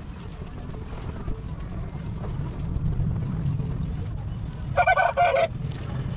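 Low steady rumble of air as a small charcoal fire is fanned with cardboard, and about five seconds in a short, loud honk like that of a goose or other fowl.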